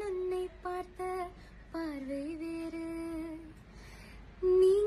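A woman singing a slow melody alone: a few short notes, then a long held note that dips in pitch before settling, a brief lull, and a louder note starting near the end.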